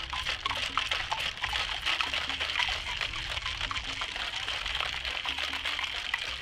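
Ice cubes and liquid rattling inside a metal cocktail shaker shaken hard and without a break, a dense run of quick clicks: a cocktail being shaken to chill it and make it frothy.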